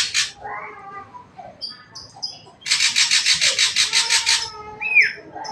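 Ashy drongo singing: short high whistled notes, a long harsh rapid rattle about halfway through, and a sharp downward-swooping whistle near the end.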